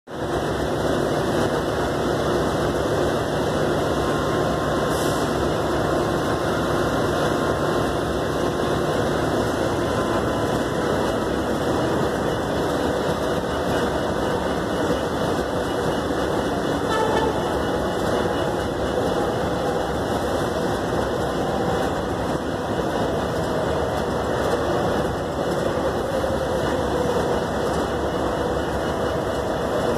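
CSX diesel-electric locomotive running close by: a steady, loud engine noise with no break, faint tones coming and going within it.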